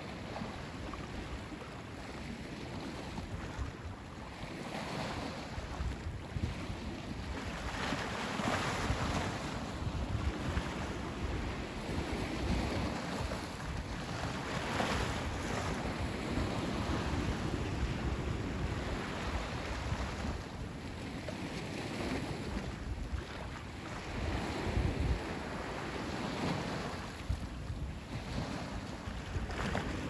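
Sea waves breaking and washing up on the beach, the surf swelling and falling back every several seconds. Wind rumbles on the microphone underneath.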